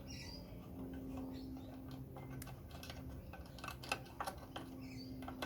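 Scattered small clicks and taps of a washing machine's door latch parts being handled and fitted, over a low steady hum.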